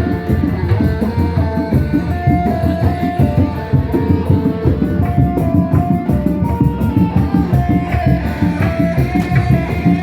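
Kuda lumping music: fast, dense hand drumming under a melody of held notes.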